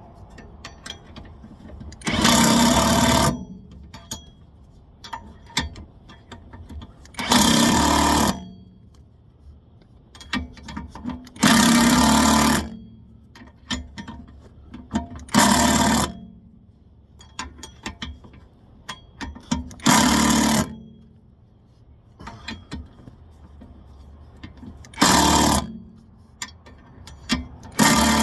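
Impact wrench hammering in about seven one-second bursts, with small clicks between them: the bolts of the new rear wheel bearing hub are being run down tight.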